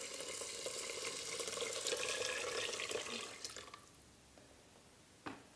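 Chicken broth poured in a steady stream from a plastic container onto rice in a rice cooker pot, splashing and gurgling as the pot fills. The pour stops about four seconds in, and a short knock follows near the end.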